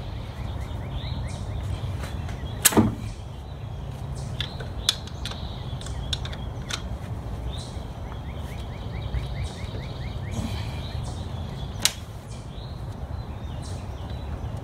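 Metal pliers clicking and knocking against the valve springs and cylinder head of a Nissan 240SX while pulling a valve stem seal, with one louder clank about three seconds in and a few sharp ticks after it, over a steady low rumble.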